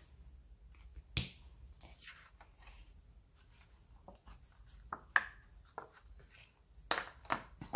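Scattered light taps and clicks with some rustling as a paper card and a paint marker are handled, lifted and turned over on a craft mat.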